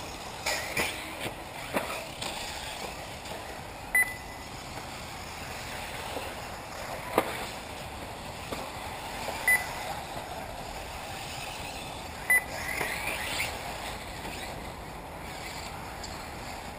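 Electric 1/8-scale RC buggies running on an off-road track, with a faint high motor whine rising as one passes near the end. Three short high beeps, typical of a race lap-counting system as cars cross the timing line, and one sharp click about seven seconds in.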